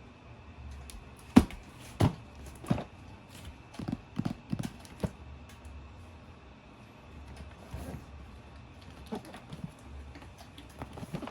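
Handling noises from unboxing a toy RC car: irregular knocks and clicks, a few sharp ones in the first five seconds, then fainter rustles and taps.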